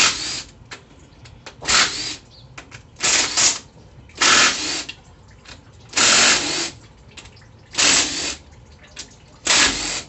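A power tool run in about seven short bursts, one every second and a half or so, working on a transmission valve-body bolt whose head is slightly stripped.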